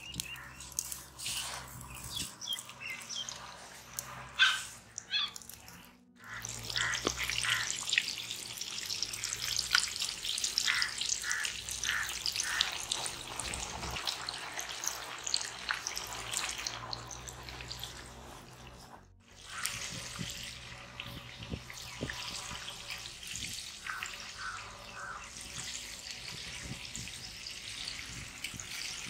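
Whole breaded chickens deep-frying in hot oil in an iron kadai, the oil bubbling and sizzling steadily. The sound cuts out briefly about six seconds in and again a little before the twenty-second mark.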